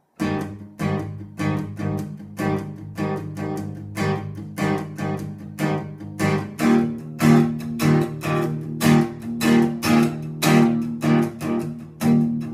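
Solo acoustic guitar playing a song's instrumental intro, a steady rhythm of picked and strummed chords several times a second, with heavier accents in the second half.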